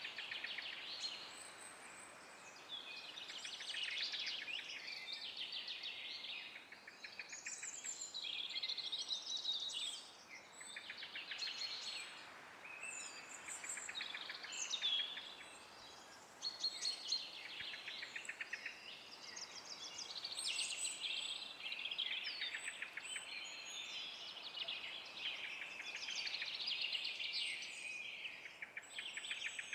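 Several songbirds singing at once in an unbroken chorus of overlapping trills and chirps, over a faint background hiss.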